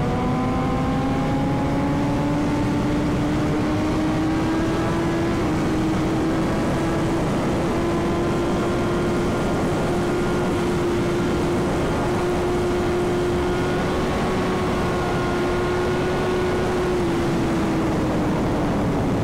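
Superbike engine at highway cruise under heavy wind rush on the microphone. Its note climbs slowly over the first few seconds as the bike gains speed, then holds steady and dips a little near the end.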